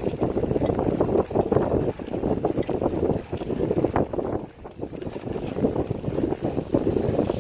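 Wind buffeting the microphone of a camera on a moving bicycle, a loud fluttering rush mixed with the bike's rolling noise on a concrete trail; it eases briefly about halfway through.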